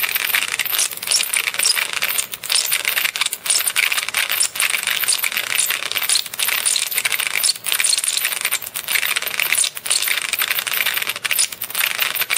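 A neon flicker-flame candle bulb's glow discharge made audible through an LM386 amplifier and loudspeaker: a dense, high-pitched crackling hiss with chirp-like peaks, like a recording of a bird chirping with heavy rain falling on the microphone. It is broken by brief dropouts every second or so.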